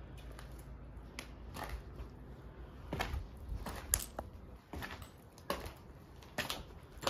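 Irregular footsteps with scuffs and crunches, about one every half to one second, over a low steady rumble.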